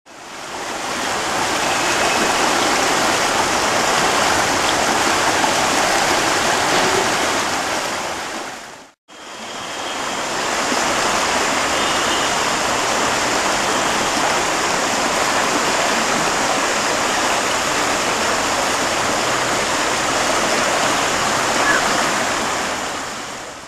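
Ganges river water rushing in a steady, loud stream. It fades out to a short gap about nine seconds in, then fades back in and runs on.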